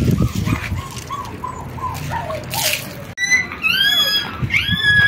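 Water sloshing in a plastic bowl, with faint short squeaks. After a sudden cut about three seconds in, newborn puppies squeal in loud, high-pitched, arching cries, several in quick succession.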